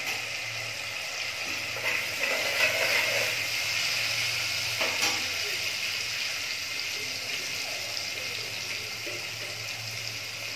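Oil sizzling steadily in a pot where chopped onion, bay leaves and ground spices are frying, with lemon juice just added to the hot masala. A single sharp knock about five seconds in.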